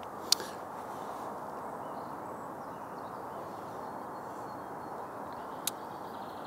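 Quiet, steady outdoor background hiss with two short sharp clicks, one about a third of a second in and one near the end.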